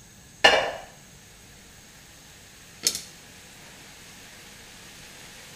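A sharp metallic clank of a utensil knocking against the wok about half a second in, ringing briefly, then a lighter click near three seconds, over a steady faint hiss.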